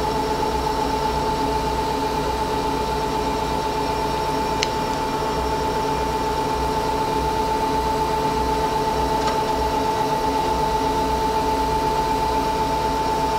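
Okamoto OGM-12-24U cylindrical grinder running with its grinding wheel spindle and work head turning: a steady machine hum with a constant tone, and two faint clicks.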